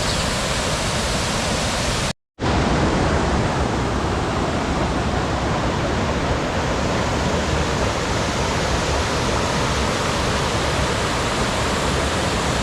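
Waterfall: a steady, loud rush of falling water. The sound cuts out completely for a split second about two seconds in, then the same rush resumes.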